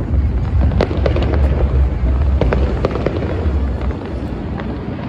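Fireworks going off: a rapid scatter of sharp crackles and pops over a continuous low rumble, which drops away about four seconds in.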